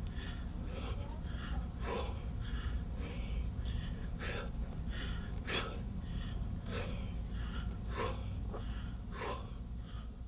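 A man breathing hard in short, sharp puffs while doing push-ups, about one to two breaths a second, over a steady low hum.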